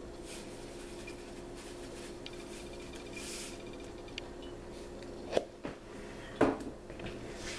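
A steady low hum with faint rustling and scraping, then two short knocks near the end.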